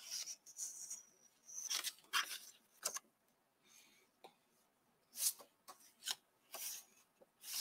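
Sheets of patterned scrapbook paper being flipped and slid against each other, in short dry rustles with a quiet pause of about two seconds in the middle.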